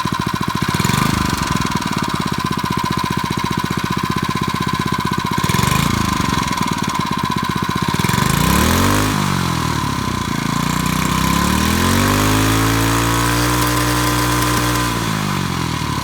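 Harbor Freight 79cc single-cylinder four-stroke engine running, its throttle worked by a remote-controlled servo: idling with short rev-ups about half a second, five and a half and eight seconds in, then revving up and held at high speed for a few seconds before dropping back to idle near the end.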